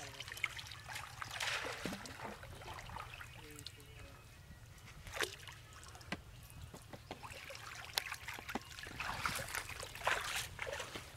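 Water trickling and dripping off a wet cast net as it is gathered up in shallow pond water, with a few sharp splashes, the loudest near the end.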